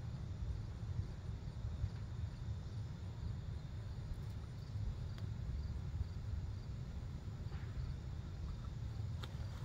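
Outdoor garden ambience: a steady low rumble with faint insect chirping repeating at an even pace, and a few faint clicks near the end.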